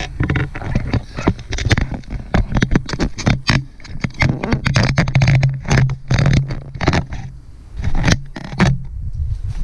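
Irregular close crunching and scraping noises, many in quick succession, over a low steady hum.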